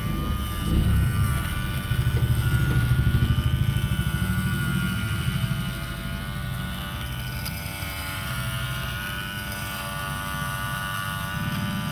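Battery-powered lint remover (fabric shaver) running: its small motor gives a steady whirring hum as the blade head is pushed over a T-shirt. A rough rubbing is louder for a few seconds between about two and five and a half seconds in.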